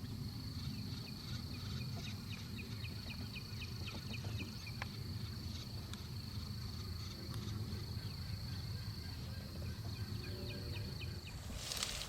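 Night outdoor chorus: a steady high-pitched insect drone, with two runs of rapid chirps about a second in and again near the end, over a low steady rumble.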